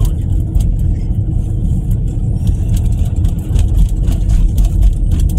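Steady low rumble of a moving car's cabin, road and engine noise, with scattered light clicks, as the car drives alongside a rolling freight train.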